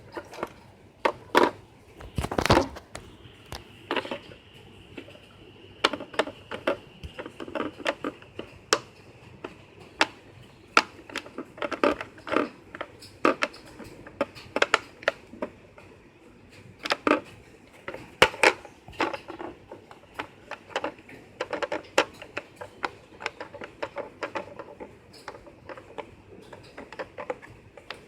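Silicone pop-it fidget toy having its bubbles pressed, an irregular run of sharp pops and clicks, sometimes in quick clusters.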